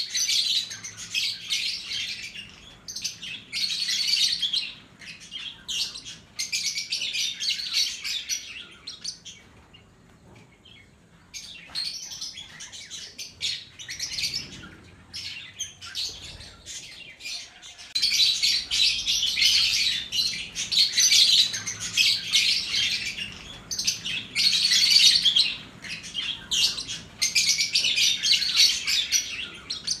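Lovebirds chattering: dense, rapid high-pitched chirps in bouts a second or two long, with a quieter lull about a third of the way in.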